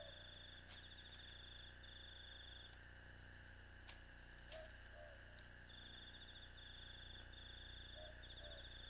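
Faint night ambience of insects: a steady high buzz with repeated bursts of chirping trills. A soft two-note call comes about every four seconds.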